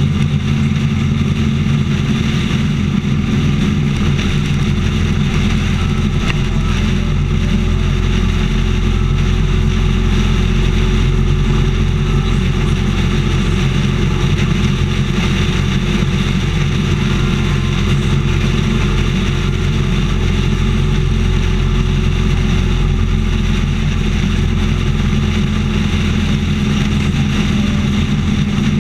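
Motorcycle engine running steadily at highway cruising speed, heard from a camera mounted on the bike.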